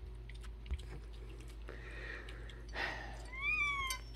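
A tabby cat gives one complaining meow near the end, rising then falling in pitch, after a couple of short breathy sounds and soft clicks.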